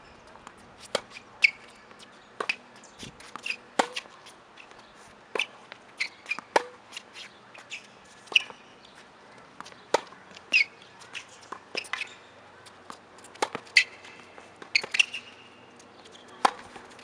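Tennis balls being struck by rackets and bouncing on an outdoor hard court during play: a string of sharp pops and taps at irregular intervals, a dozen or more.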